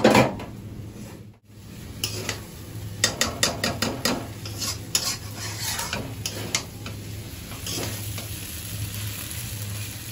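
Chow mein noodles being stir-fried in a steel kadai: a spatula stirring and scraping through them with a string of quick clacks against the pan, over a steady sizzle. The clacks come thickest between about two and seven seconds in.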